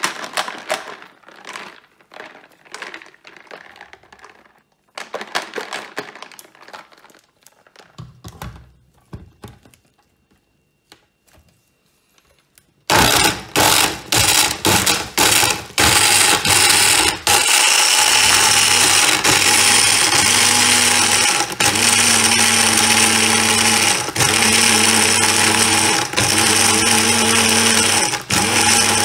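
Countertop blender switched on about halfway through with a few short pulses, then running steadily as it blends an iced milk smoothie with chocolate, the motor dipping briefly several times. Before it starts, light clicks and knocks as the jug and ingredients are handled.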